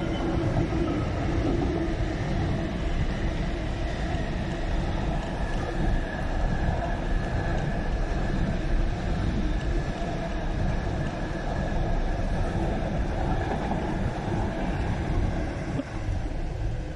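Container wagons of a freight train rolling past on the rails, a steady rumble of wheels on track that drops away near the end as the last wagons pass.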